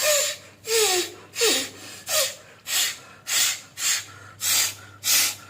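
Rapid, forceful snorts out through the nose, about nine short blasts in a steady rhythm, expelling the leftover salt water after jal neti nasal rinsing, with one nostril pressed shut. The first few blasts carry a brief falling whistle.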